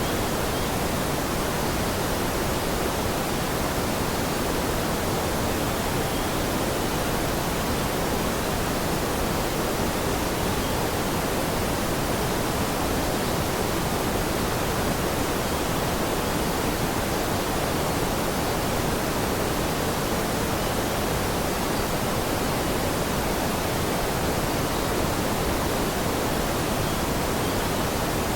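Steady rushing water: an even, unbroken hiss with no single drops or splashes standing out.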